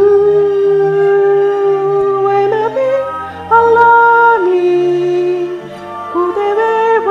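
Music: a singing voice holds long notes of a wordless melody over a soft instrumental backing with a low bass line. The first note is held for about two and a half seconds before the melody steps up and down.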